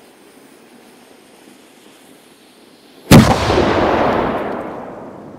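A black powder salute fired from an upright thundermug goes off with one loud bang about three seconds in, followed by a long rumbling echo that fades over about two seconds.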